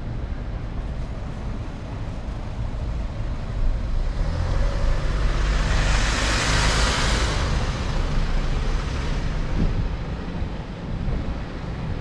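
City street traffic with a steady low rumble; one vehicle passes close, swelling from about four seconds in and fading away by about nine seconds.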